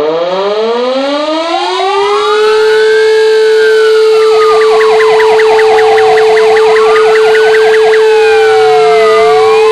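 A civil-defence siren winds up and holds one steady tone, while fire engines' sirens wail up and down over it, switching to a fast yelp for a few seconds in the middle. This is the sirens sounded at 'W' hour, the commemoration of the Warsaw Uprising.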